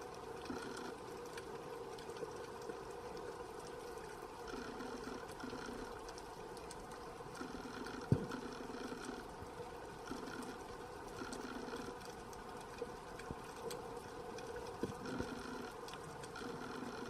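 Underwater sea ambience heard through a diving camera: a steady hum with pulsing patches every second or so, faint scattered clicks, and one sharp knock about eight seconds in.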